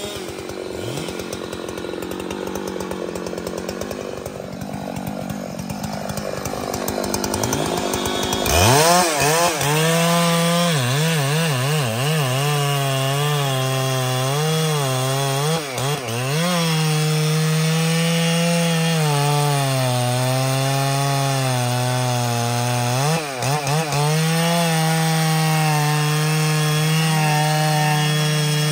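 Large Husqvarna two-stroke chainsaw cutting into trembesi wood. It runs softer and wavering at first, then about eight and a half seconds in it jumps loudly to full throttle. From there it holds a high, steady pitch that sags and recovers as the chain bites, with two brief dips in revs partway through.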